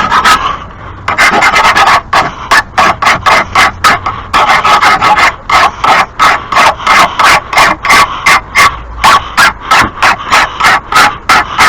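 Hand file rasping along the steel edge of a lawn mower blade, sharpening it in quick, even strokes of about three to four a second, after a short pause near the start.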